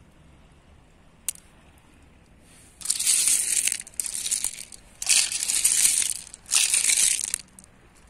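Beach pebbles crunching and grinding against each other in four long scrapes, from about three seconds in to near the end, after a single sharp click about a second in.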